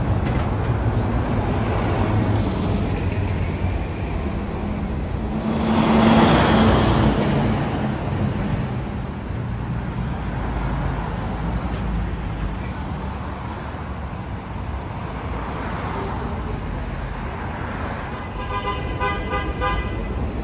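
Busy city street traffic: buses and cars running past, with a low engine hum and one louder vehicle passing about six seconds in. A horn sounds near the end.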